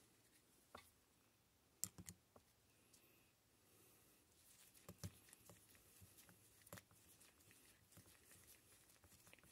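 Near silence, with a few faint small clicks and taps as the Nikki carburetor and its small metal parts are handled on the bench.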